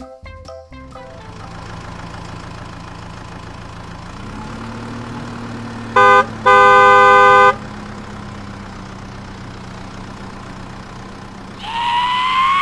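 Cartoon vehicle sound effects: a low engine hum that rises slightly in pitch about four seconds in, then a horn honking twice, a short toot followed by a longer blast of about a second. Near the end a wavering, sliding tone begins.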